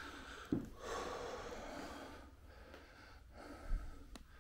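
A heavy-set man breathing hard from the effort of squeezing through a narrow opening: two long, heavy breaths, with a brief knock just before the first and a low thud near the end.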